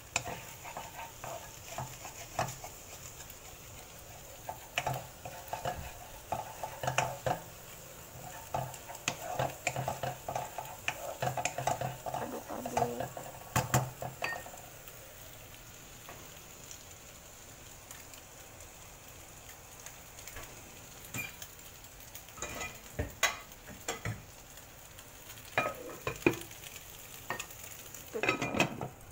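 Egg and dried shrimp sizzling in a nonstick wok while a spatula stirs and scrapes them, with repeated clicks and scrapes against the pan, busiest in the first half. Near the end a glass lid is brought over the wok.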